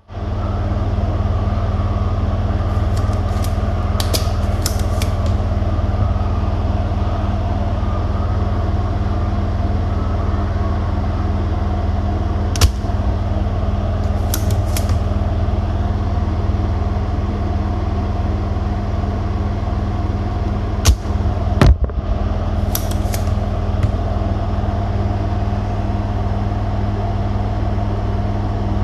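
A steady mechanical hum, with a few sharp small clicks scattered through it and a short cluster of clicks about three quarters of the way in.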